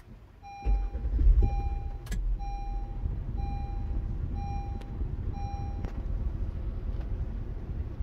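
Car engine starting about half a second in and then idling steadily. Over it, an electronic chime beeps about six times, roughly once a second, and stops about six seconds in. There is a single click near the second beep.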